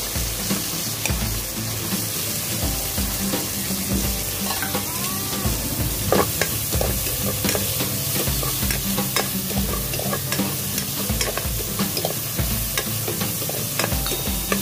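Onion, tomato and garlic sizzling in hot oil in a nonstick wok while being stirred with a spatula. A steady hiss runs throughout, broken by frequent clicks and scrapes of the spatula against the pan.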